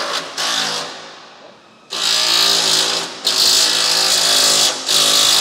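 A power tool run in three bursts of about a second each with short pauses between, a loud hissing whir with a steady pitch.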